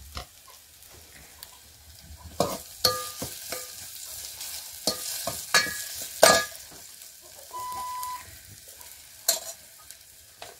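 Masala frying and sizzling in hot oil in a steel pot at the tempering (phodni) stage, with a steel ladle stirring and clinking sharply against the pot several times.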